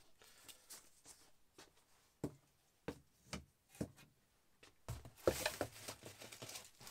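Handling sounds: a few light knocks and taps as items are put down, then from about five seconds in, rustling of cardboard and plastic wrapping as hands dig into a shipping box.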